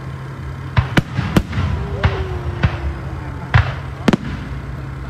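Fireworks display: five sharp bangs of shells bursting, the loudest about three and a half seconds in, with crackling trailing off after the bursts.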